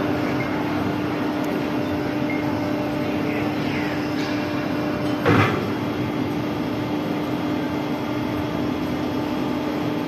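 Drop tower ride running, its drive giving a steady mechanical hum with one steady tone, and a short louder burst about five seconds in.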